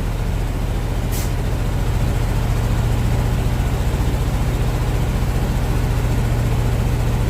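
Engine of a 1970s Chevrolet dump truck running steadily at a fast idle, with a brief click about a second in.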